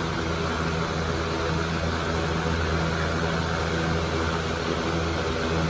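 Electric fan running with a steady hum and whoosh, over water pouring from a plastic gallon jug into a plastic plant tray.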